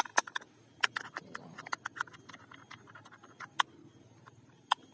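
Plastic toy guns being handled: scattered light clicks and taps at an irregular pace, the sharpest a little under a second in, about three and a half seconds in and near the end.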